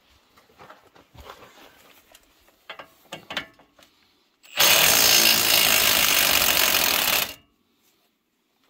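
Impact wrench hammering on a wheel's lug nut for about three seconds, then stopping abruptly, as the nut is loosened to take the tire off. A few light clicks and knocks come just before it.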